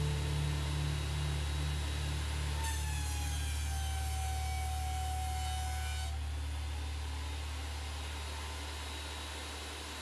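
Cutech 13-inch spiral cutterhead benchtop planer running steadily. From about two and a half seconds in to about six seconds, a board passes through the cutterhead, adding a higher whine that sags slightly in pitch and then cuts off. After that the machine's sound eases down gradually.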